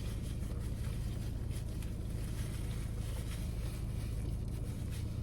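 Steady low hum inside a car, with faint small clicks now and then.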